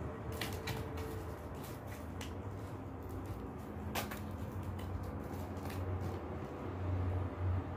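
Cat scrabbling inside a woven plastic basket: scattered clicks and scrapes of claws and paws on the plastic weave, one sharper knock about four seconds in, over a low steady hum that grows louder near the end.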